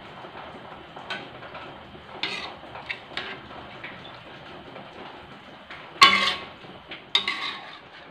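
Spatula scraping and knocking against a metal wok as stir-fried food is scooped out, with two louder ringing clanks about six and seven seconds in.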